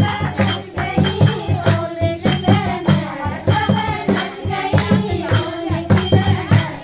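Kumaoni Holi folk song: singing over a regular beat of hand percussion strokes.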